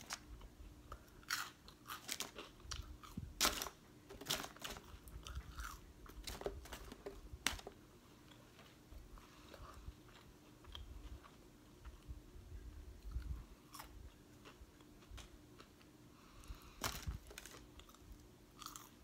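Crunchy french fries being bitten and chewed close to the microphone, with irregular sharp crunches, more of them in the first half and again near the end. A faint steady hum runs underneath.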